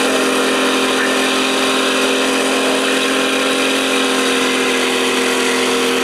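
Car engine held at steady high revs during a burnout, its rear tyres spinning on a wetted track, with a constant hiss over the engine note.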